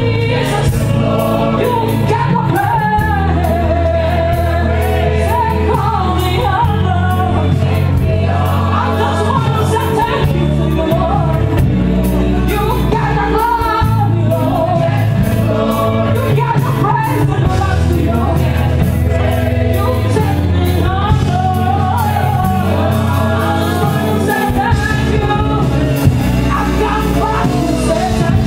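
Live gospel music: a choir singing with a band, saxophone over steady bass and drums.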